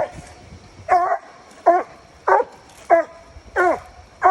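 Coonhound barking at a tree where a raccoon is treed, a steady rhythm of loud barks, about six of them, one every two-thirds of a second.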